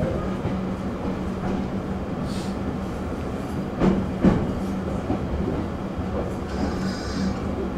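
E231 series electric commuter train running, heard from inside the car: a steady rolling rumble with a low hum. About four seconds in, the wheels give a quick double clack over a rail joint.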